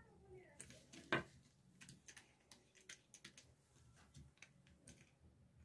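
Faint, scattered clicks and taps of a small screwdriver, terminal screws and wires being handled on a plastic switch-and-socket extension board, with one sharper click about a second in.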